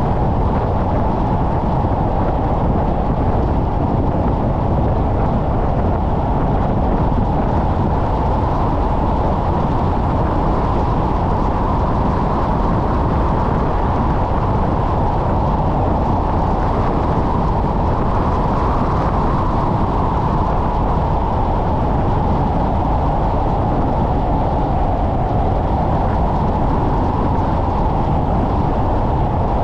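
Steady rush of wind and road noise from a car driving, picked up on a hood-mounted GoPro 10, with no changes or distinct events.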